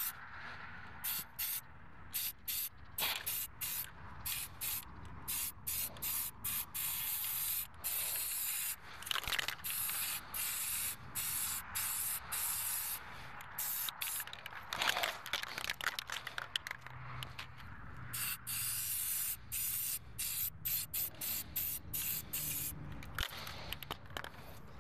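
Aerosol spray-paint can spraying a truck wheel in many short bursts of hiss, with a few longer passes in the middle.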